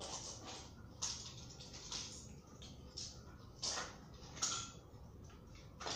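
Plastic toy pieces clicking and clattering as they are handled and fitted together: a series of light clicks, roughly one a second.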